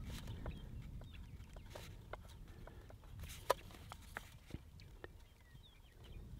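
Low wind rumble on the microphone, with scattered light clicks and taps, the sharpest one about three and a half seconds in, and a few faint bird chirps.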